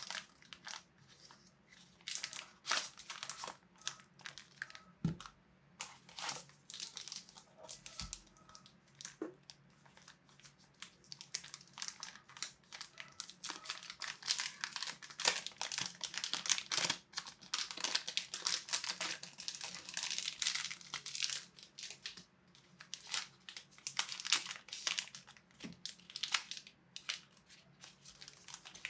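Plastic bags and paper box packaging crinkling and rustling as they are handled and unwrapped, in quick irregular crackles that are busiest in the middle. Two soft thumps come about five and eight seconds in.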